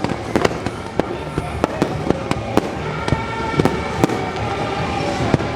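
Fireworks bursting in a rapid, irregular run of sharp pops and cracks, with music playing underneath.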